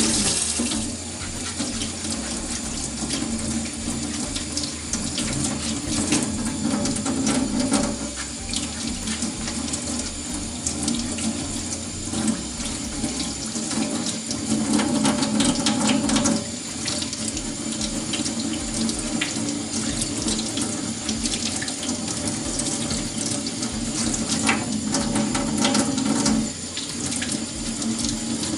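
Kitchen tap running into a stainless-steel sink while potatoes are rinsed and scrubbed by hand under the stream. The splashing grows louder for a couple of seconds three times.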